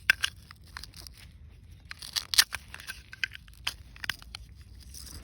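Crisp roasted fish crunching and crackling: irregular sharp snaps and crackles, the loudest a little over two seconds in.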